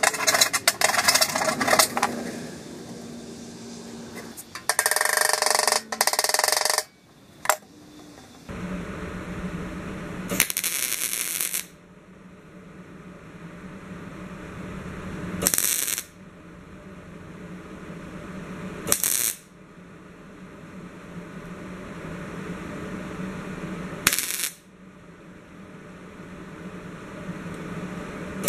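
Hand file rasping in short strokes on the edge of a small steel hood patch. Then a MIG welder hums steadily, broken by a series of short crackling tack welds a few seconds apart as the patch is tacked in; the first tack lasts about two seconds and the rest are briefer.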